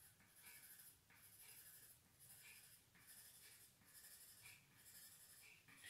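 Faint scratching of a crayon drawn over paper in short strokes, coming in little groups about once a second.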